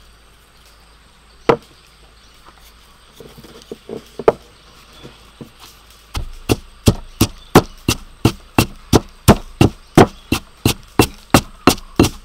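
Pestle pounding chili paste in a stone mortar. There is a single knock, then a few light taps, then from about halfway steady pounding at about three strokes a second.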